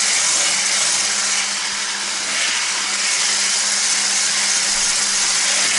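Electric stick blender with a whisk attachment running steadily, beating butter and sugar in a plastic bowl: a steady motor hum under a constant hiss of the whisk.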